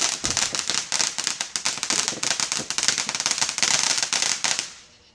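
Consumer firework crackling, a dense rapid stream of small pops over a hiss, dying away about four and a half seconds in.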